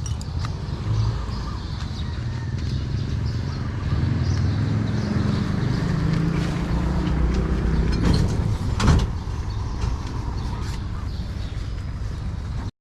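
A motor vehicle running with steady low rumble, its engine pitch rising for a few seconds midway, and two sharp knocks about eight and nine seconds in; the sound cuts off abruptly near the end.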